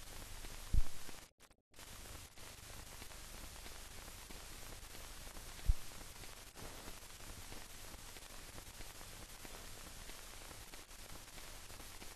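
Steady hiss from an old film transfer without a soundtrack of its own, broken by two short low thumps, one about a second in and one near the middle, and a brief drop-out to silence just after the first.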